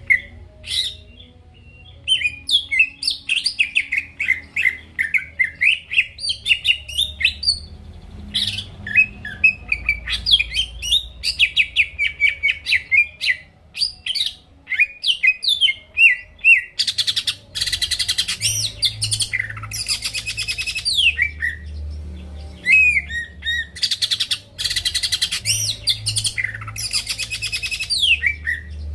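Green leafbird (cucak ijo) in full song: a fast, varied stream of whistled phrases, broken twice by dense, buzzy rattling passages that end in falling slurs. This is the kind of song kept as a lure to make rival birds sing.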